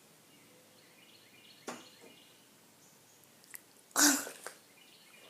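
Quiet room with a couple of faint clicks, then about four seconds in a short, loud burst of breath from a person.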